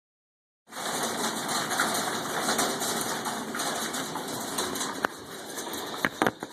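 Hailstorm: a dense, steady clatter of hail and rain pelting down, full of tiny clicks, with a few louder single hailstone strikes near the end. The sound starts abruptly just under a second in and eases slightly about two-thirds of the way through.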